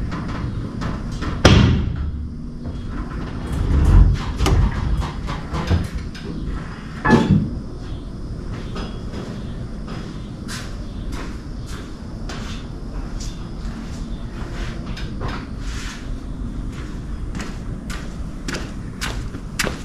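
Two-post car lift lowering a car: a few heavy metallic clunks in the first seven seconds, then a steady low rumble with light ticks about two a second as the lift arms come down.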